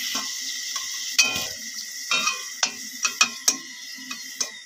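Potato chunks sizzling in hot oil in a steel wok, with a metal spatula repeatedly clicking and scraping against the pan as the fried potatoes are scooped out.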